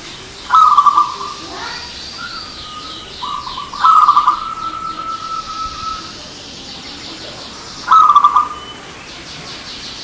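Zebra dove (perkutut) cooing: three phrases of rapid, trilled notes, about half a second in, near the middle and near the end. The middle phrase ends in a long held note. Fainter high chirps from small birds are heard between the phrases.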